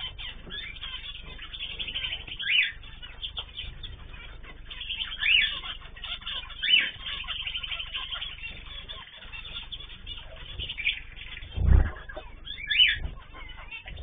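Cage birds in a mixed aviary of canaries, zebra finches and a cockatiel chirping and calling: a steady chatter with a few louder calls scattered through. There is one loud low thump about twelve seconds in.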